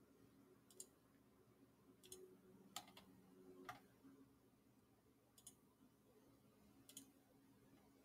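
Faint computer mouse clicks, about six, spaced irregularly over near silence.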